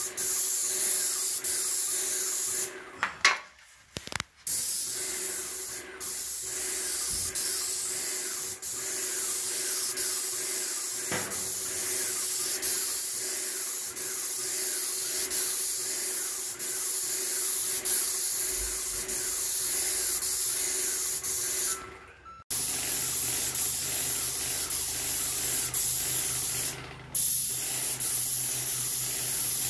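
Airless paint spray gun hissing steadily as it atomises paint onto a plywood ceiling. The hiss stops briefly a few times, with the longest gap a few seconds in.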